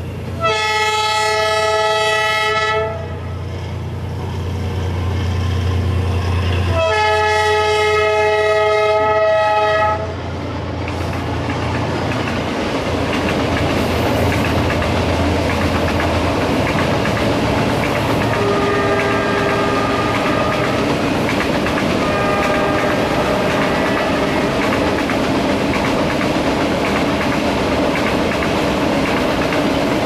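Diesel locomotive of a freight train sounding its multi-tone horn in two long blasts, about half a second and seven seconds in. Then the long train of freight wagons rolls past with a steady clickety-clack of wheels on the rails, while the engine's low drone fades out after about sixteen seconds.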